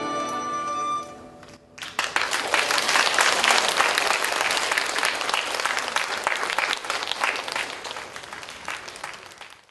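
A Chinese silk-and-bamboo ensemble holds its final chord, which dies away about a second in. Then an audience breaks into applause, which fades out near the end.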